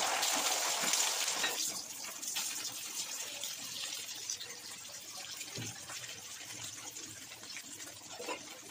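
Beaten egg sizzling as it is poured into a hot oiled frying pan of noodles. The sizzle is loudest over the first second or so, then settles to a steady frying hiss as the egg is stirred, with a couple of faint knocks from a wooden spatula.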